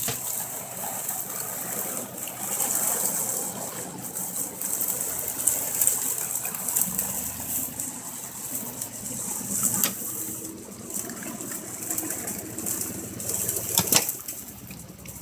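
Jeep engine running off-road, heard through heavy hiss from a phone's microphone, with a couple of sharp knocks.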